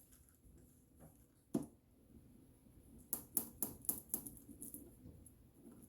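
Quiet kitchen handling noises while getting ready to spread mayonnaise on toasted sandwich bread: a single sharp tap about a second and a half in, then a short run of small clicks and taps near the middle.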